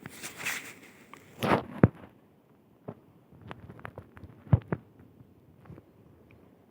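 Footsteps of someone walking on a forest path: a rustling, scraping crunch in the first second and a half, then a string of irregular soft thumps.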